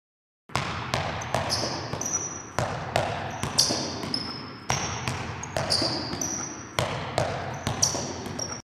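Basketball dribbled rapidly on a gym floor, a quick run of bounces with short high sneaker squeaks, in a pattern that repeats about every two seconds. It starts about half a second in and cuts off abruptly near the end.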